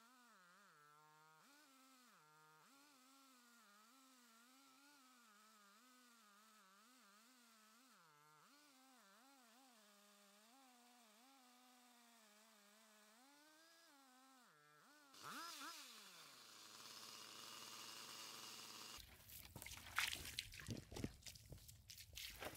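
Stihl 880 chainsaw's two-stroke engine heard faintly as it cuts through a log on a chainsaw mill, its pitch rising and dipping as the load changes. About two-thirds of the way through the engine sound stops and gives way to rustling and irregular knocks.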